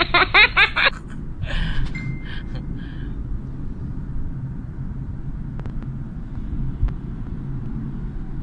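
Steady low road and engine rumble inside a car's cabin at highway speed, with a voice trailing off about a second in.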